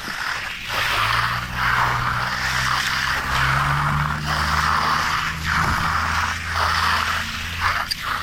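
Rhythmic scraping strokes of a hand tool working wet concrete, about one a second, over a low steady hum that starts about a second in.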